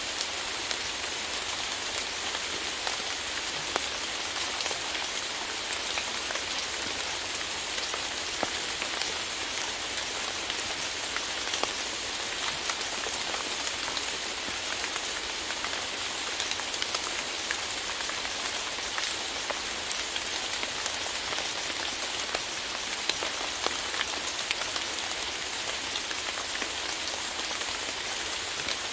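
Steady rain: an even hiss with many small drop ticks scattered through it.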